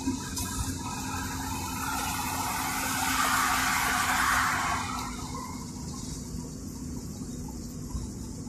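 A vehicle passing: its road noise swells over a couple of seconds and then fades, over a steady low hum.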